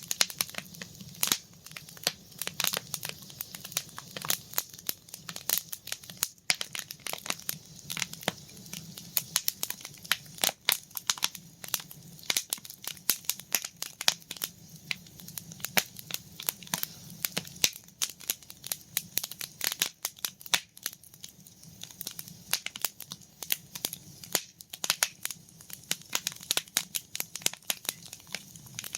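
Campfire crackling, with dense, irregular snaps and pops over a low, steady rumble.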